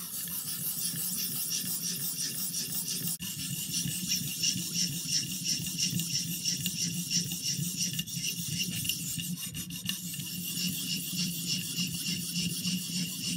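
600-grit sharpening stone on a guided-angle knife sharpener rubbed in quick, even strokes along the steel edge of a thin Victorinox paring knife: a steady rasping of stone on steel, with a brief break about three seconds in. The stone is grinding the bevel down to a lower angle because the old edge was a little steep.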